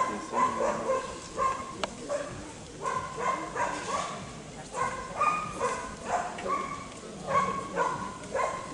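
A dog barking over and over in quick runs of short, high barks.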